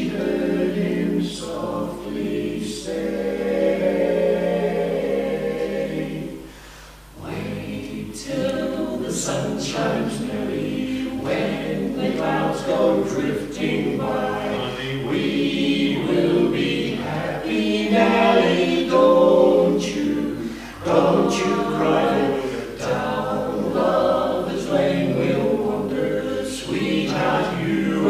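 A male barbershop quartet singing a cappella, four voices in close harmony, with a short break between phrases about seven seconds in.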